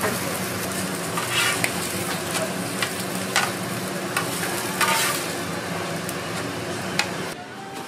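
Korean green-onion pancakes sizzling on a hot flat steel griddle, while a metal spatula scrapes and clacks against the griddle surface several times as it slides under them. The sizzle drops away abruptly near the end.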